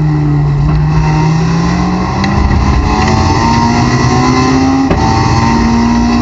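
Honda S2000 race car's four-cylinder engine heard from inside the cabin, pulling in third gear out of a corner, its pitch low at first and then rising steadily as it accelerates. A short click about five seconds in.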